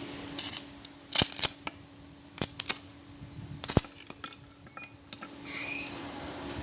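A series of sharp clinks and knocks of hard objects being handled, about a dozen at uneven intervals, over a steady low hum.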